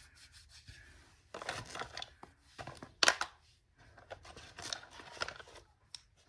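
Makeup being handled and applied: irregular scraping and rustling, with one sharp click about three seconds in.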